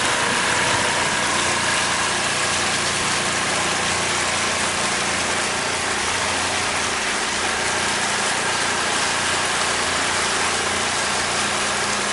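Pontoon boat's outboard motor running steadily while cruising, over an even hiss.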